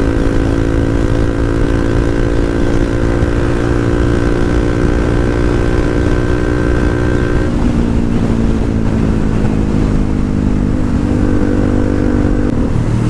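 Motorcycle engine running loud at cruising speed, with a dense low rumble of wind on the microphone. The engine note drops about seven and a half seconds in and shifts again near the end, as the throttle or gear changes.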